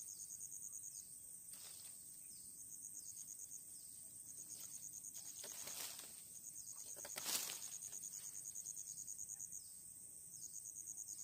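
A pocket knife whittling a small wooden stick, a few sharp scraping cuts with the strongest about seven seconds in. Behind them, insects chirp steadily: rapid high pulses in spells of a second or two over a constant high hiss.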